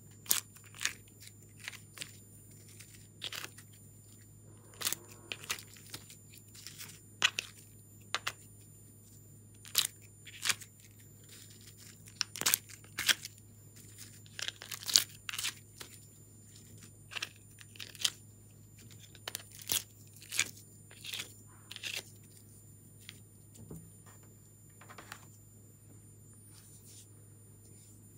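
Slime mixed with foam balls and glitter being pressed and pulled by hand: irregular sticky crackles and pops, thinning out over the last several seconds.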